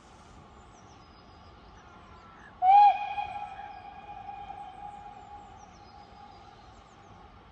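Steam locomotive whistle giving one short blast, its single note scooping up in pitch as it opens, then dying away over a few seconds.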